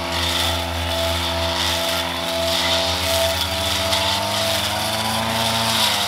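A small motor running steadily, its pitch rising a little near the end.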